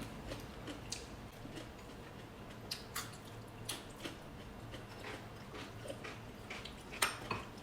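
Faint eating sounds: chewing and wet mouth smacks, with scattered small clicks and a sharper click about seven seconds in.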